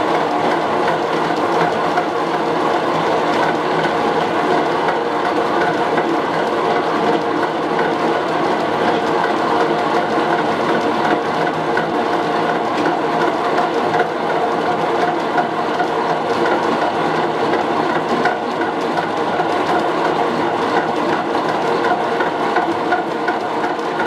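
Golden Nugget wheat grinder, a hand-crank mill converted to run from a belt-driven electric motor, running steadily while grinding wheat.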